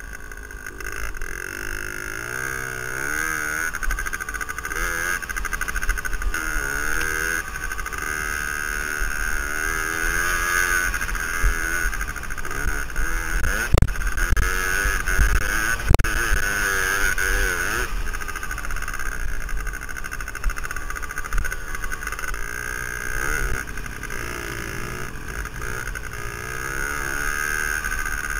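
Suzuki DS80's small two-stroke single-cylinder engine revving up and falling back again and again as the dirt bike is ridden, heard from a helmet camera with a low wind rumble on its microphone. Two sharp knocks about two seconds apart sound about halfway through.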